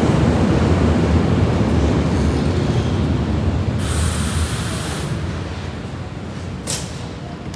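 Berlin U-Bahn small-profile train pulling into the station: a loud rumble of wheels and running gear that dies away as it slows to a stop. A burst of hissing air about four seconds in, and a single sharp click near the end.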